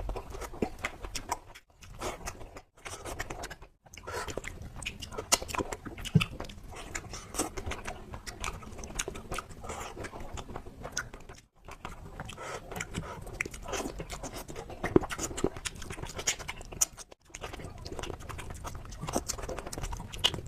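Close-miked chewing of fish curry and rice, a dense run of short clicks and mouth sounds that breaks off briefly about five times.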